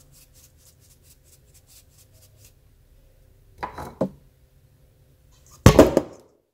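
Flour-dredged goby fish being tossed in a stainless steel bowl: a faint soft patter at first, then two short bursts of the fish shifting and knocking against the bowl, about four and six seconds in, the second louder.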